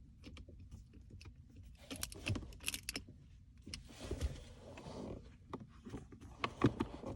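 Light metallic clicks and rattles as the shift knob's T25 screw is tightened by hand and the shifter parts are handled, with a rustling about four seconds in.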